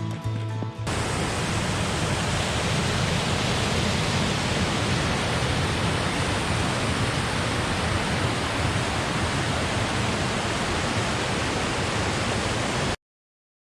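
Steady rush of water from a fast-flowing mountain creek, cutting off suddenly near the end.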